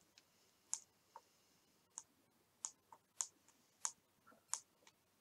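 Faint, sharp clicks of a small tactile pushbutton being pressed again and again, about one press every two-thirds of a second, to test whether it works.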